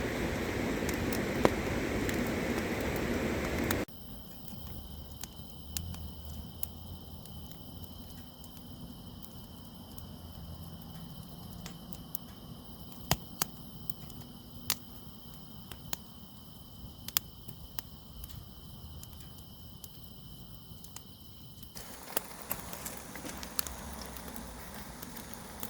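Wood campfire crackling, with scattered sharp pops, over a steady high chirring of insects. It opens with a few seconds of louder steady rushing noise that cuts off abruptly.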